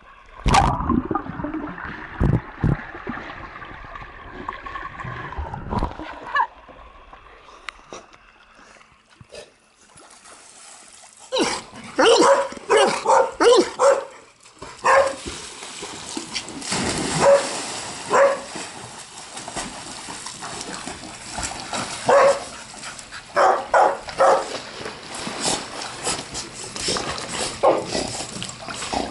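Water splashing as dogs swim in a pool, then, from about twelve seconds in, Labrador retrievers barking in repeated short bursts.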